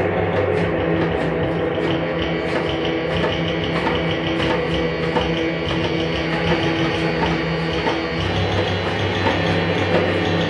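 Live band playing an instrumental passage, guitar to the fore, over a steady beat with no vocals.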